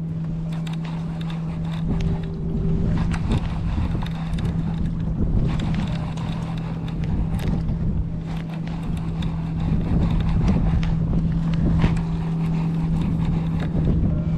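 Boat engine running with a steady hum, and wind buffeting the microphone.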